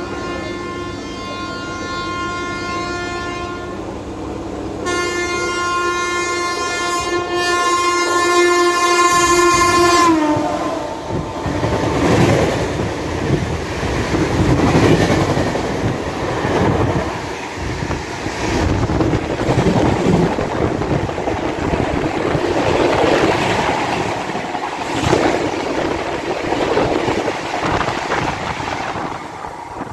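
Horn of the approaching Gitanjali Express sounding two long blasts, the second louder and dropping in pitch as the locomotive passes about ten seconds in. Then its coaches rush past close by, a loud rumble with rhythmic wheel clatter, which eases off near the end.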